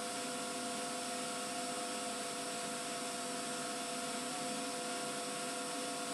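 Steady hiss from an old camcorder videotape, with a few faint steady electrical whines.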